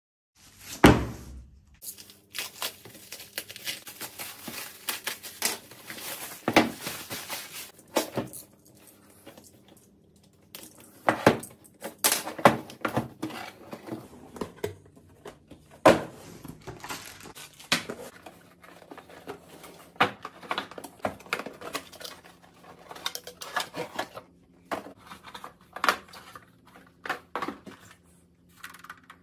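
Unboxing handling sounds: a cardboard box and plastic packaging rustling and crinkling, with many sharp knocks and clicks as the box and the RC car are handled on a table. The loudest knock comes about a second in.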